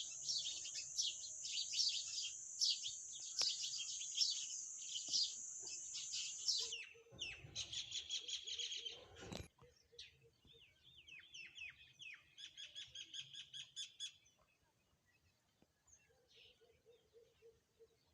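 Songbirds chirping and trilling: dense, high, overlapping chirps for the first seven seconds, then separate quick trills and short chirps, thinning out to a few faint calls over the last few seconds.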